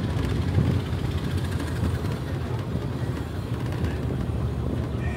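Vintage open car driving slowly, heard from the driver's seat: the engine runs steadily, with road and wind noise.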